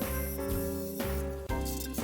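Background music with a steady beat and bass notes about twice a second.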